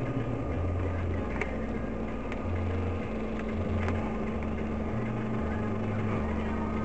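Low, steady rumble of a car's engine and tyres heard from inside the cabin by a dash camera, with a faint steady hum from about a second and a half in and a few light ticks.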